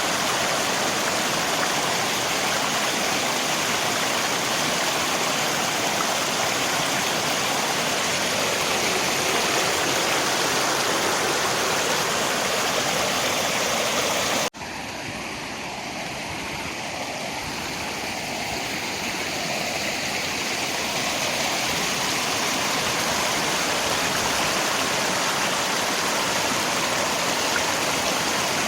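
Steady rushing noise of river water and rain. About halfway through it cuts out for an instant and comes back quieter, swelling back up to full level over the next several seconds: the join where the recording loops.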